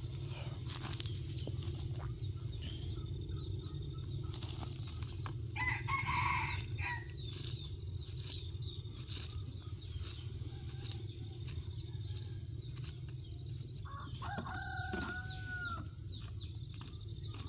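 A rooster crowing twice, once about six seconds in and again near the end, over a steady low rumble and faint scattered clicks.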